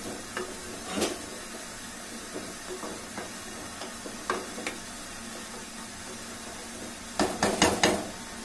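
Wooden spatula stirring rice in a pressure cooker pot, with scattered knocks and scrapes against the pot and a quick cluster of louder knocks near the end, over a steady low hiss.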